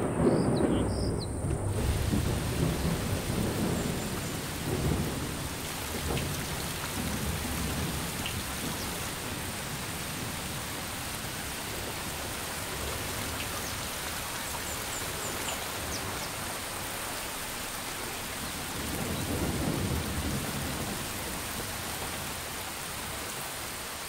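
Heavy rain pouring steadily onto dry sandy ground during a thunderstorm. A loud thunderclap rumbles away over the first few seconds, and more low rumbles of thunder come a few seconds in and again near the end.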